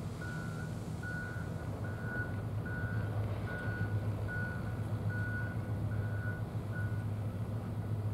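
An electronic beeper sounding nine even beeps, a little over one a second, which stop about seven seconds in, over a steady low hum.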